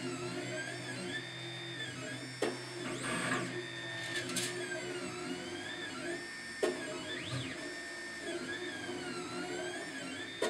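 Monoprice Select Mini 3D printer printing. Its stepper motors whine in repeating rising and falling tones as the print head moves. Two sharp clunks, about two and a half and six and a half seconds in, are the extruder's clunking, which usually means it isn't pushing enough plastic through.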